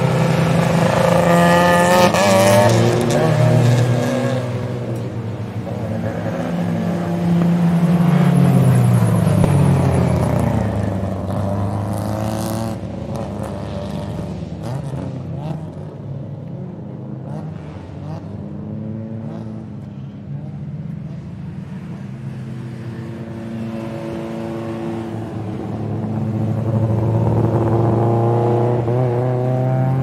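Race car engines revving hard, their pitch rising and falling several times as they accelerate and lift off. It is loudest in the first few seconds and around eight to nine seconds in, and swells again near the end.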